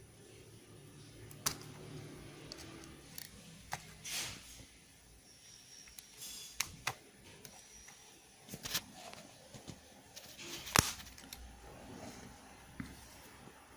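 Scattered sharp clicks and light taps of small smartphone parts and hand tools being handled during disassembly, with soft rustling between them; the loudest click comes near the end.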